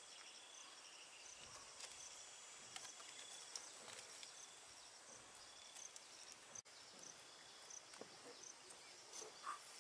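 Near silence: faint outdoor ambience of insects chirping, a steady high tone with short repeated high chirps, and a few soft ticks.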